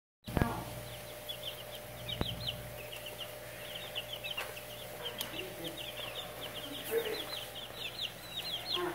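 Several young chicks peeping continuously, a rapid run of short, high, falling chirps from many birds at once. A sharp knock about half a second in is the loudest single sound.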